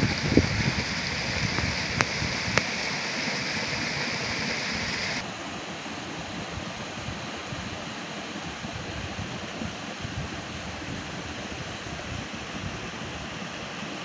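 Steady rush of flowing stream water. It is louder and brighter for the first five seconds, then drops to a quieter, duller hiss. Two sharp clicks come about two seconds in.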